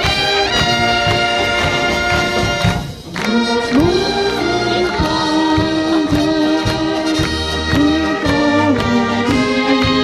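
Large live brass band playing German-style brass music: trumpets and trombones over low bass notes, with a short break about three seconds in.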